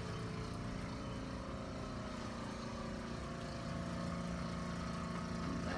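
A steady machine hum with several steady tones, rising a little about two-thirds of the way in.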